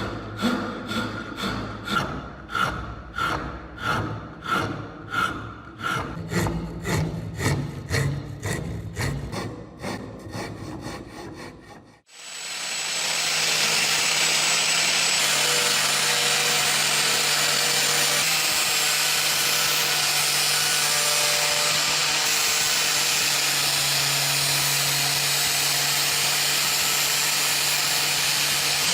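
Rhythmic hand strokes working wood, about three every two seconds, like sawing or rasping a wooden axe handle. About twelve seconds in they stop abruptly and a power tool runs steadily with a low hum under an even whirring noise.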